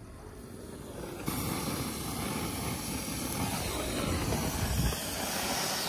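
Firework hissing: a hand-held firework pencil sparkler fizzing as it sprays sparks to light a small ground firework. The hiss grows louder about a second in and then stays steady.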